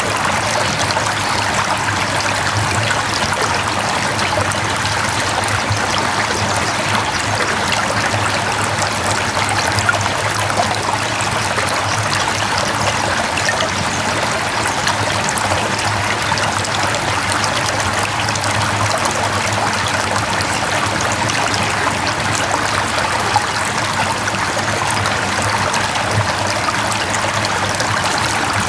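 Mountain stream flowing over rocks: a steady, continuous rush of running water.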